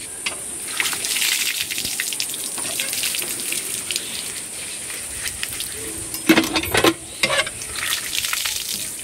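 Water gushing from a hand pump's spout over a bundle of leaves being rinsed by hand, splashing onto the concrete platform below. A few louder, sharp sounds about six to seven seconds in.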